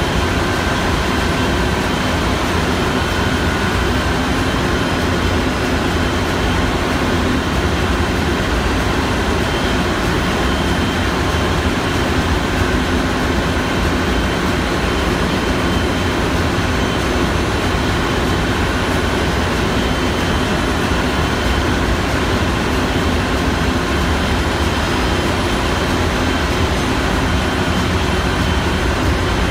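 Loud, steady drone of a ship's engine room machinery running, with a few constant hums and whines over it.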